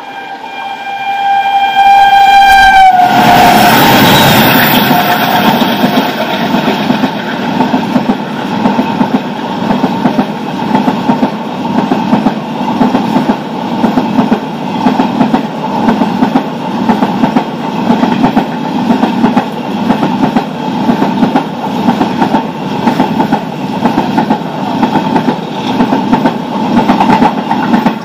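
Indian Railways locomotive horn sounding one long chord of several notes for about three seconds, its pitch dropping as the locomotive passes close by. The passenger coaches then rush past on the next track with a loud, rhythmic clatter of wheels over rail joints, fading out near the end.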